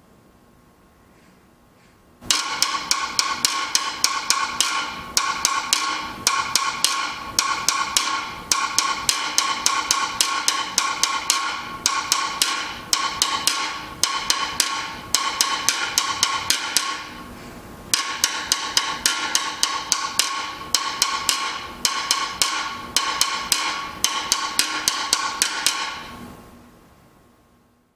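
Guiro played with a metal triangle beater in a quick, steady rhythm, scraped on the accented notes and tapped on the others. The playing starts about two seconds in, breaks off briefly about two-thirds of the way through, then resumes and stops near the end.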